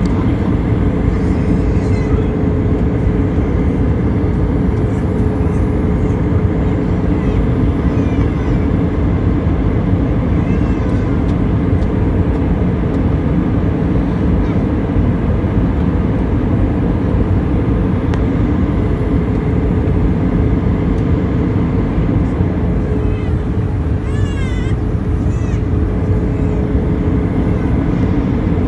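Steady cabin noise of an airliner in flight: a constant rush of engine and airflow noise with a steady hum running through it.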